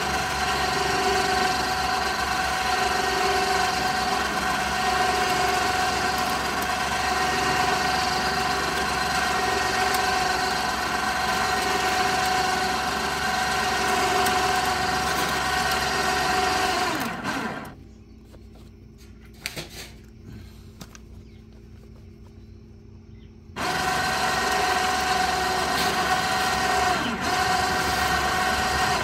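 Electric ATV winch motor running steadily, reeling in its cable with a steady whine. It stops a little past halfway through, and after about six quieter seconds it starts again suddenly.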